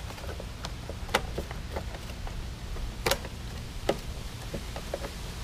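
Scattered light clicks and knocks of hard plastic against metal as a pressure washer's plastic gas tank is worked loose and lifted off its engine, with a louder knock about a second in and another about three seconds in.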